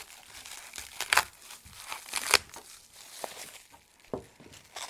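Packaging wrap being crinkled and torn off flat-pack panels, in irregular crackles and rustles.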